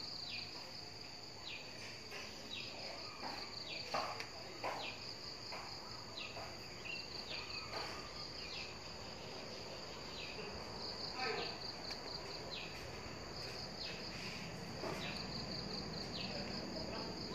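Insects trilling in a steady, high-pitched, pulsing chorus, with short falling chirps from another animal about once a second and a couple of sharp knocks about four seconds in.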